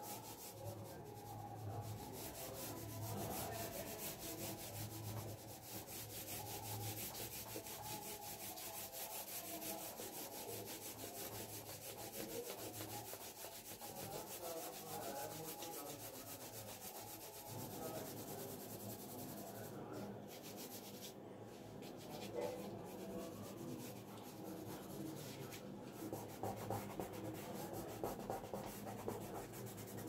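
Pencil scratching on paper in quick back-and-forth shading strokes, a continuous rubbing.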